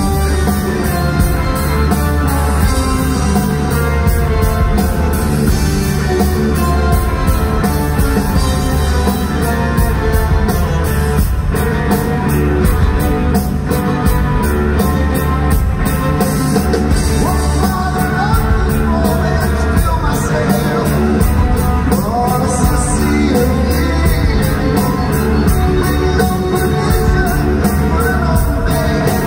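Live rock band playing loud, with a lead singer over electric guitar, drums and keyboards and a steady beat, heard from the audience in a large hall.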